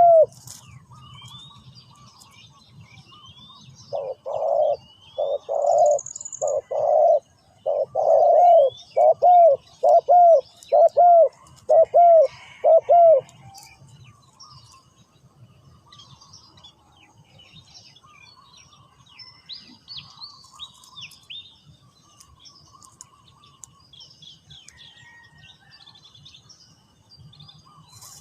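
Spotted dove cooing: a quick run of repeated, rounded coo notes starting about four seconds in and stopping about nine seconds later. Other small birds chirp faintly in the background throughout.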